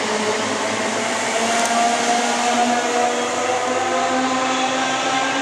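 Class 315 electric multiple unit pulling away, its traction motors giving a whine that rises slowly in pitch over the steady rumble of the train.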